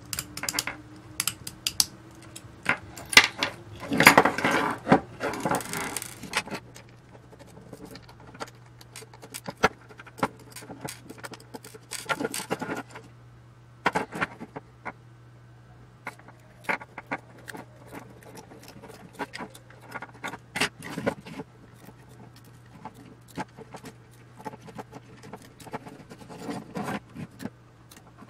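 Tools, small metal parts and wired circuit boards being handled on a wooden workbench during a teardown. Irregular clicks, clinks and knocks come throughout, with a denser scraping rattle about four to six seconds in.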